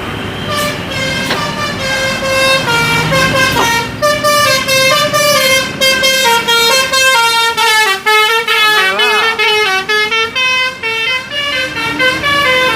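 Bus 'telolet basuri' musical horn playing a quick melody, its tuned notes stepping up and down several times a second.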